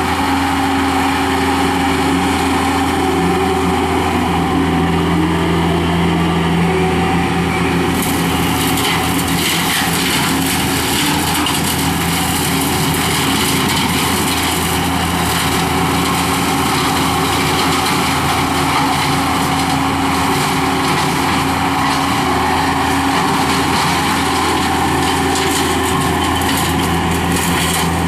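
Skid steer loader's engine running steadily under load, driving a hydraulic brush cutter (brush hog). About eight seconds in, a harsher rushing noise joins and carries on over the engine.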